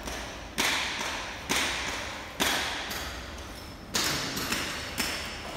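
Five sharp knocks, roughly one a second with one longer gap, each ringing and fading away over about half a second in a large echoing room.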